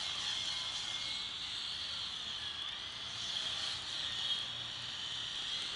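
Small battery-powered remote-control helicopter flying, its electric motor and rotor giving a steady high whine that wavers slightly in pitch.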